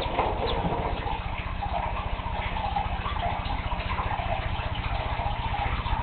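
Hatching chick peeping faintly over a steady low hum.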